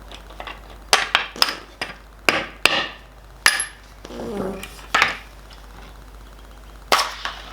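A string of sharp metal clinks and knocks, about nine spread unevenly over six seconds, some ringing briefly, with a short scrape in the middle.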